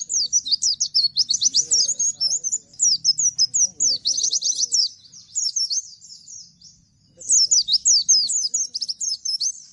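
Bustomi white-eye (pleci) singing its rapid-fire 'nembak' song, a fast run of quick, high, sweeping notes. A long burst of about five seconds is followed by a short lull, and another burst comes about seven seconds in.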